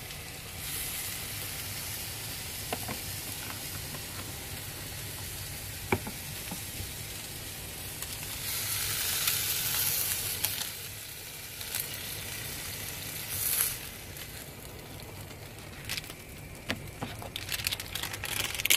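A slice of frozen pizza sizzling steadily in a frying pan on baking paper, the sizzle coming from liquid seeping out of the pizza, which the cooks put down to its frozen spinach topping. The sizzle swells for a couple of seconds about halfway through, and near the end clicks and scrapes come as a spatula lifts the slice out of the pan.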